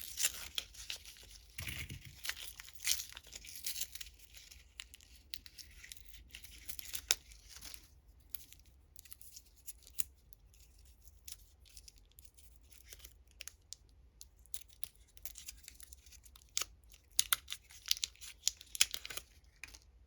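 Candy wrappers being torn open and crinkled, in irregular bursts of rustling and sharp crackles. The crackling is busiest in the first few seconds and again near the end, with sparser crackles in between.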